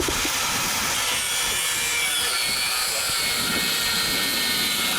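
A power cutting tool running steadily through hard material: a continuous gritty hiss with a high motor whine that dips and rises near the end.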